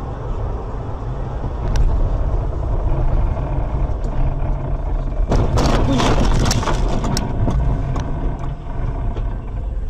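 Car cabin road and engine rumble on a slushy winter highway. About five seconds in comes a second-long burst of crunching and clattering, with scattered clicks trailing off after it: a collision with another car.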